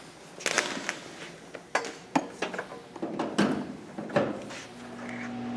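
Irregular knocks and clatters of hard objects being handled and set down, a dozen or so sharp strikes, some ringing briefly. A steady low hum starts near the end.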